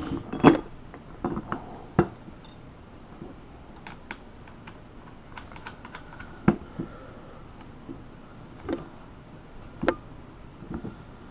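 Irregular clicks and knocks of the metal halves of a small split wheel rim and their fasteners being handled and fitted together by hand, with a few louder knocks among lighter taps.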